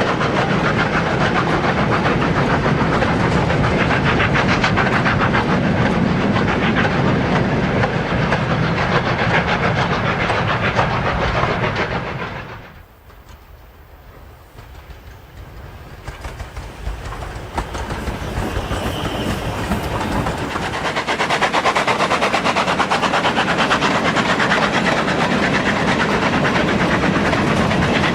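OO gauge model train running on the layout track: a steady rattle of wheels and motor with rapid clicking. It drops away sharply about twelve seconds in and builds back up over the next several seconds.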